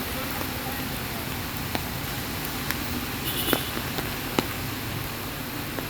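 Heavy rain falling steadily, with a few sharp taps of drops scattered through it.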